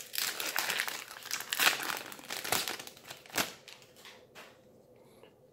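A Magic: The Gathering booster pack's foil wrapper being torn open and crinkled by hand, a dense crackling that dies away after about three and a half seconds.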